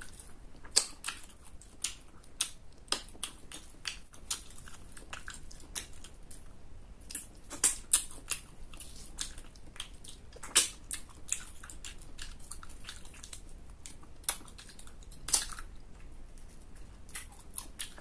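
A person chewing and biting crunchy food close to the microphone: irregular sharp crunches, at times several a second, with the loudest around eight, ten and fifteen seconds in.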